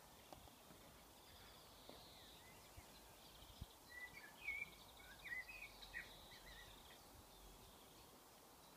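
Near silence: faint outdoor ambience, with a few soft bird chirps around the middle.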